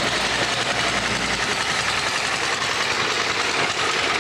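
Small gasoline engine of a motorized shopping cart running steadily as the cart is driven along.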